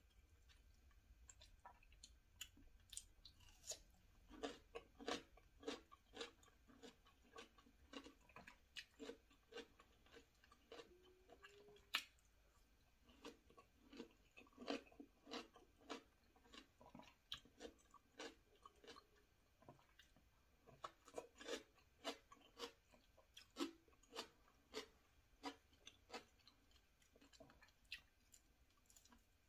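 Close-miked mouth chewing of crisp raw vegetables, a cucumber spear and then a hot chili pepper: a dense run of irregular wet crunches and mouth clicks, easing off briefly about two-thirds of the way through.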